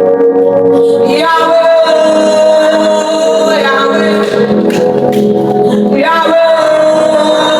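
Worship music with sustained sung notes from male and female voices over instrumental accompaniment.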